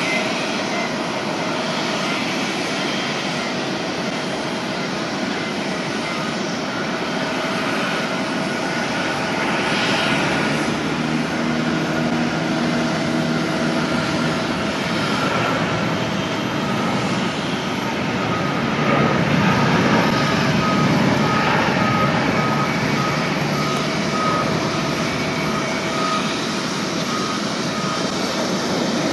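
Airbus A340-600 airliner on its take-off roll, its four Rolls-Royce Trent 500 jet engines running at take-off power: a steady jet noise that swells in the second half as the aircraft lifts off. A repeated beeping sounds over it for several seconds in the second half.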